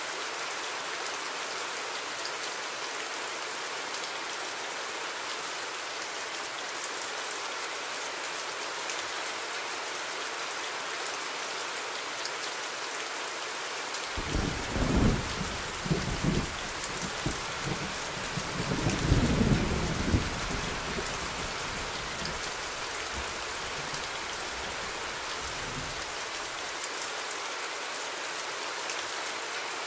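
Steady rain, with thunder rumbling from about halfway through for some ten seconds, swelling twice before dying away.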